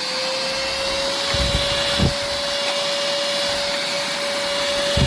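SERVOMASTER cordless handheld vacuum cleaner running steadily, a constant motor whine over the hiss of its airflow. Two low thumps sound about two seconds in and near the end.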